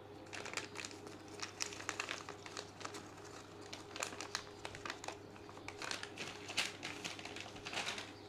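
Irregular crinkling and crackling from something being handled, in quick uneven clusters that stop shortly before the end.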